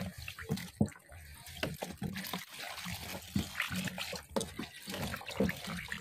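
Wet clothes being worked by hand in a tub of rinse water, with irregular splashing and sloshing.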